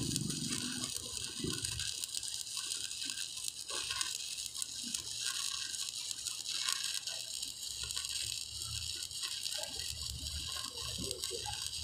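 Electric arc welding on steel: the arc's steady crackling sizzle as a weld is run.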